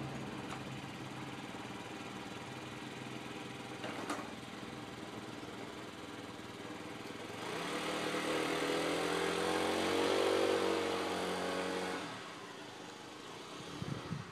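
Yamaha C3 50cc four-stroke scooter engine idling steadily, with a single click about four seconds in. At about seven and a half seconds the engine revs up and runs louder as the scooter pulls away, then fades quickly at about twelve seconds as it rides off.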